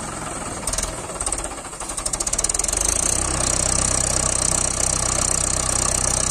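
Mahindra 575 DI tractor's four-cylinder diesel engine labouring under heavy load as it pulls a loaded brick trolley stuck in sand. It grows louder about two seconds in and holds a loud, steady, rapidly pulsing pull as the tractor strains hard enough to rear its front wheels off the ground.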